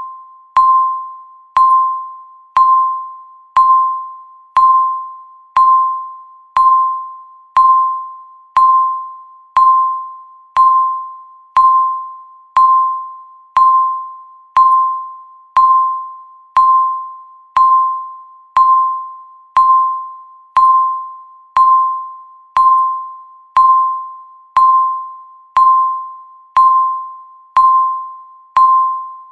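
Countdown timer's electronic beep sounding once every second, marking each second of the countdown. Each beep is a single clear tone that starts sharply and fades away before the next; about 29 beeps, all alike.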